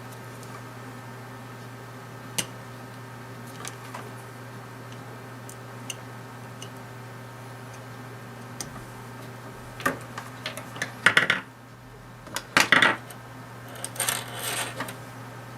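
Small metal tools and parts clinking and tapping on a workbench during soldering work: a few single ticks, then clusters of clatter about ten, twelve and fourteen seconds in, over a steady low hum.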